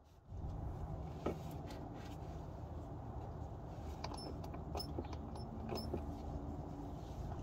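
A steady low rumble sets in about a third of a second in. Over it come a few light clicks and knocks from working a hand pump that pushes Haldex coupling fluid up a filler tube.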